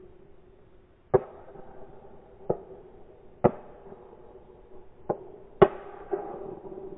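Shotguns firing at driven pheasants: five single shots at uneven intervals, the last two about half a second apart and the last the loudest. They are fired by other guns on the line, not the one held upright in view.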